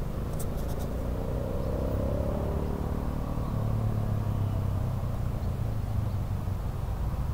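A motor vehicle engine droning steadily. Its pitch glides slowly over the first few seconds, then settles into an even low hum.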